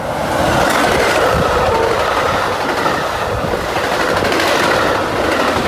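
Metra bilevel commuter train, cab car leading, passing close at speed: loud, steady rumble of wheels on rail that swells in the first half-second and holds as the stainless-steel cars rush by.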